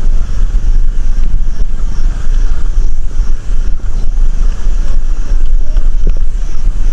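Wind buffeting a moving microphone in a loud, steady, low rumble, with a scooter running on a rough road underneath.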